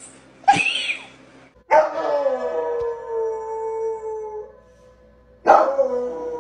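A dog strikes the keys of an upright piano with its paws and howls along. Twice a sudden clash of notes sets off a long howl that sinks slightly in pitch, the first about two seconds in and the second near the end, after a short loud sound just after the start.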